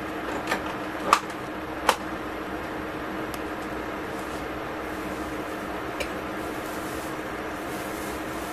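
Steady kitchen appliance hum with a constant low tone, broken by a few sharp metallic ticks from the pan and foil as they heat: three in the first two seconds, the loudest about a second in, and one more near six seconds.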